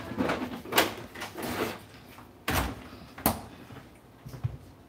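Kitchen handling noises: a few sharp knocks and clatters with a short scrape between them, as a plate and kitchenware are handled at the counter.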